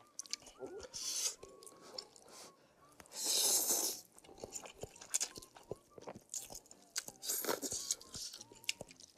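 Close-miked eating sounds from a bowl of spicy instant noodle soup: chewing and wet mouth clicks, with louder slurping bursts, the loudest about three seconds in.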